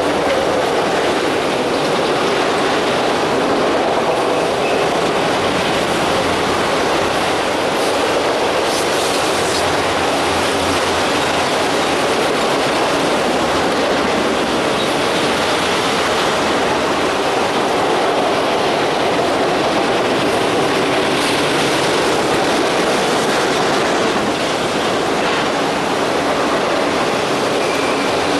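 Long string of autorack freight cars rolling past: a steady rush of steel wheels on rail, with a faint brief wheel squeal a couple of times.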